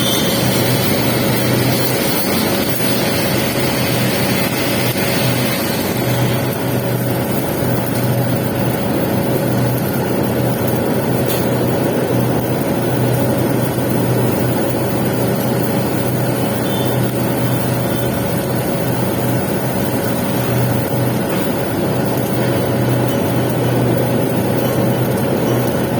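Steady drone of welding equipment at work on a pipe weld: a running machine hum under a constant hiss, with no changes in level.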